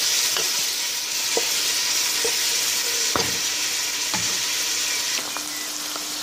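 Diced tomatoes and spices sizzling in hot oil in a metal pot while being stirred and browned (bhuna) with a spatula, which knocks and scrapes against the pot about once a second. About five seconds in, this gives way to the quieter, even sizzle of sliced okra frying in oil.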